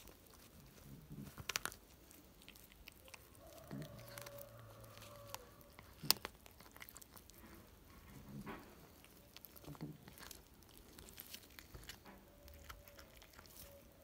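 Tabby cat chewing and biting into a pigeon carcass: faint irregular chewing with scattered clicks, one sharper click about six seconds in.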